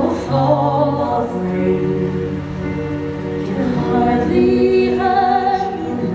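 A woman's voice singing a slow, sad stage-musical ballad over musical accompaniment, with long held notes that waver in vibrato.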